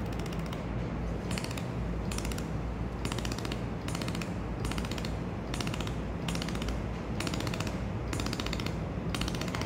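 Laser spot welder firing pulses into a metal test piece: a dozen or so short crackling bursts of rapid clicks, a little more than one a second, over a steady low machine hum. The focus is being set by ear: the loudest crack and biggest spark mark the beam's focal point, and the crack gets quieter as it goes out of focus.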